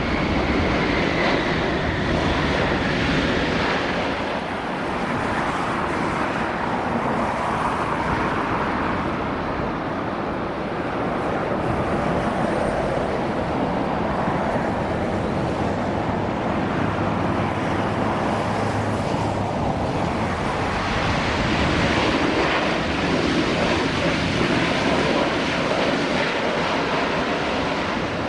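Airliner jet engines at takeoff power on the takeoff roll, a steady roar: a Boeing 787, then an Airbus A330. The roar dips slightly about four seconds in and swells again in the last several seconds.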